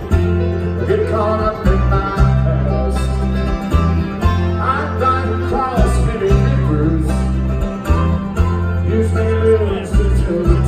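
Live bluegrass band playing: banjo, lap-style resonator guitar and acoustic guitar over a deep bass line, with a singer at the microphone.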